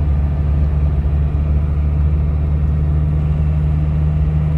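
GAZelle light van driving at a steady pace, its engine and road noise making an even, low drone.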